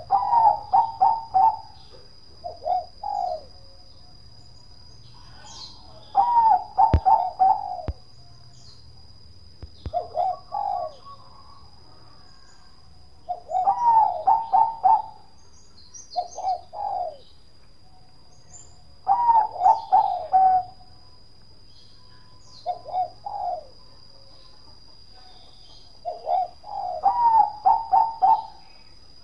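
Zebra dove (perkutut, Bangkok song type) cooing: a repeated phrase of quick, rolling notes, longer and shorter phrases alternating about every three seconds. A faint steady high-pitched tone runs beneath.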